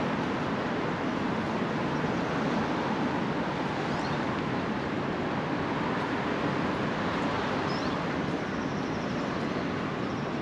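Steady outdoor city ambience: a constant wash of distant traffic noise with no distinct events, and a few faint high chirps about three-quarters of the way through.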